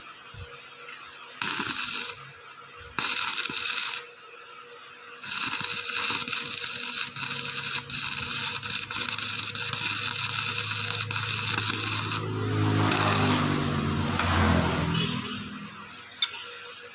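Welding arc crackling and hissing as a gapped seam is filled: two short bursts, then a longer steady run. A low hum swells and fades near the end, followed by a single click.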